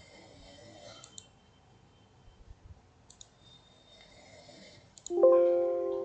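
A few faint computer mouse clicks, then about five seconds in a loud plucked-string music note rings out and slowly fades.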